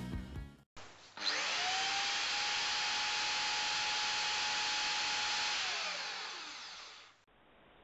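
Corded electric drill spinning the belt of a Van de Graaff generator to charge it. It spins up about a second in, runs steadily with a whine for several seconds, then winds down and fades near the end as it is switched off.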